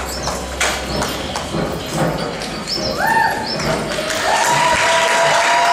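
Metal folding chairs clacking and knocking as they are folded and carried, a few irregular knocks. About four seconds in, audience applause and cheering start to build.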